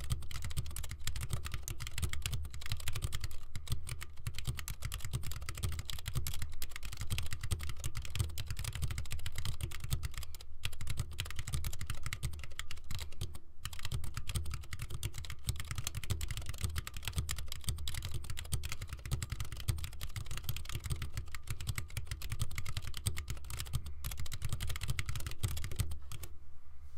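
Steady fast typing on an Iris split ergonomic keyboard with Alps SKCM brown switches, a dense run of key clicks with two brief pauses, stopping shortly before the end.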